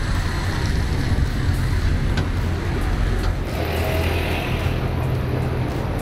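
City street traffic at a busy junction: a steady low rumble of bus and car engines with road noise, as a red double-decker bus passes close by.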